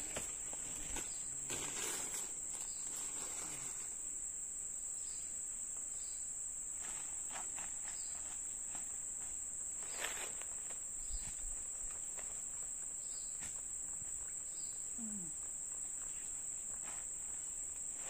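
Insects shrilling in one steady high-pitched note, with scattered faint rustles and knocks, one a little louder about ten seconds in.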